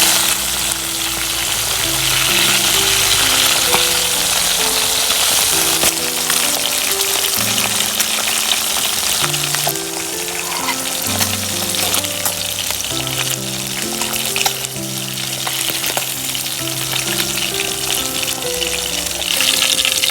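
Food frying in a hot pan, a steady sizzle, with stirring. Under it runs background music of slow held notes that change about every second.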